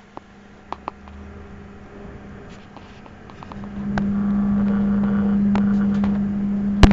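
Electrical buzz from a desktop PC, a steady low hum that swells much louder about three and a half seconds in, with a few light clicks in the first second and a sharp click near the end. The owner suspects the XFX Core PRO 550W power supply or the i5-4670K CPU as its source.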